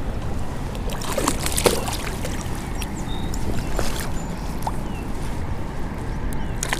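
Steady rush of river water, with a few small splashes and clicks, the most about one to two seconds in.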